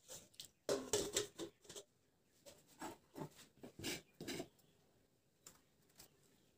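Irregular small clicks and knocks, densest about a second in and again in the middle: kitchen handling sounds of a knife and plastic plate while a tomato is cut.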